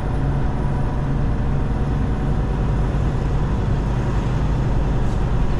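Semi truck's diesel engine running steadily at low speed, a deep drone heard from inside the cab, with road and cab noise over it.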